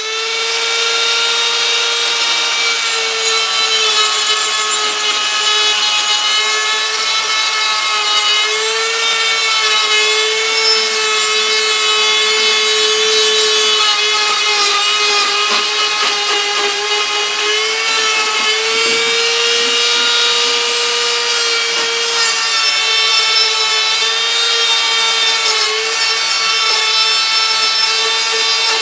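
Handheld rotary tool with a small sandpaper bit running at high speed, grinding casting flashing out of the aluminium intake port of a McCulloch Timber Bear chainsaw cylinder. A steady high whine that dips slightly in pitch now and then.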